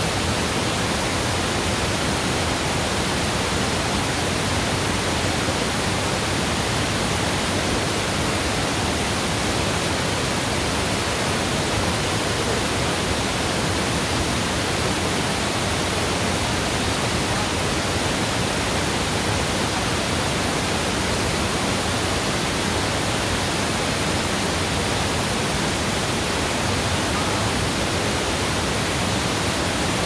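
Mountain waterfall pouring steadily: an even, unbroken rush of falling water.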